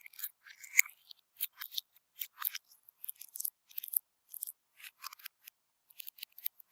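Crunchy bead-filled slime being squeezed and pressed by hand, giving a run of irregular crisp crackles and small pops.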